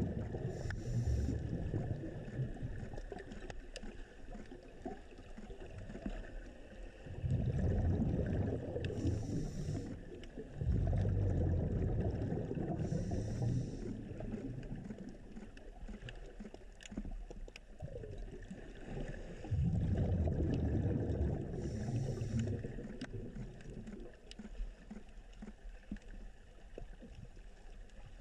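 Underwater water noise at the camera. Every few seconds there are bursts of low bubbling rumble, with short hisses in between, like a diver's breathing and exhaled bubbles.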